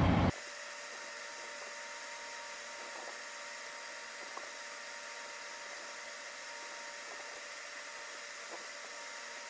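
Faint steady hiss with a thin high whine and nothing low, broken only by a few tiny ticks.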